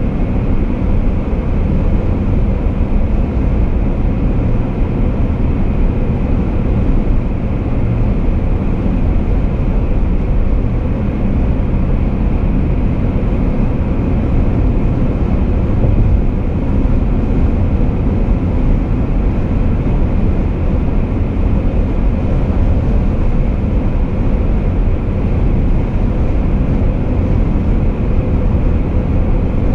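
Car cruising at steady highway speed: a steady low rumble of tyre and engine noise that holds level without changes.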